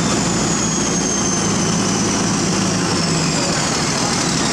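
Heavy machinery engine running steadily, with a thin high whine that drifts slowly down in pitch.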